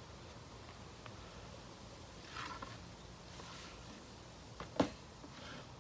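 Faint handling noises, with light scraping and rustling and one sharp click about five seconds in, as the cordless jigsaw and workpiece are handled. The saw is not running.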